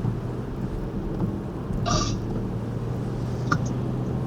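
Steady low drone of a vehicle's engine and road noise heard from inside the cab. There is a brief sharper sound about two seconds in and a short click about a second and a half later.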